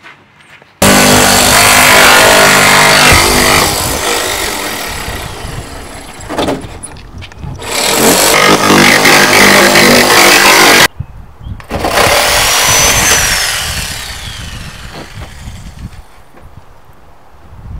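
Jigsaw cutting a window opening through the van's sheet-metal side panel. It starts abruptly about a second in, eases off and surges again, stops suddenly for a moment a little past the middle, then runs on and fades.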